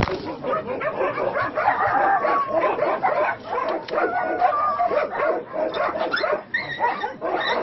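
Dogs barking, yipping and whining in a busy overlapping run, with several high drawn-out whines.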